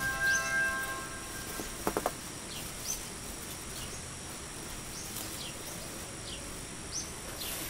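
A quick cluster of sharp snapping clicks about two seconds in as garden greens are picked by hand. Faint short high chirps come now and then over a soft steady hiss.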